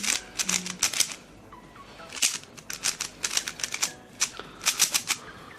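QiYi Thunderclap V2 plastic 3x3 speedcube being turned quickly by hand: bursts of crisp clicking as the layers snap round, with short pauses between the bursts.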